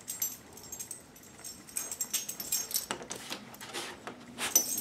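Small metal tags jingling and clinking in quick irregular bursts, loudest near the end, as a beagle–Jack Russell terrier mix moves about and jumps up at a door, eager to go for a walk.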